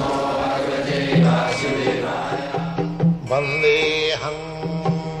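Devotional intro music: a voice chanting a mantra, giving way after about a second to plucked string notes over low sustained tones, in the style of Indian music with sitar.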